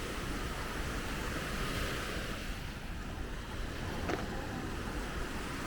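Ocean surf washing ashore in a steady rush, with wind buffeting the microphone. A single short click sounds about four seconds in.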